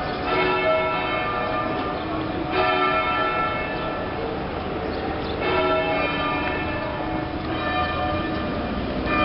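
Church tower bells ringing: overlapping strikes whose tones hang on, with fresh strikes coming about every two to three seconds.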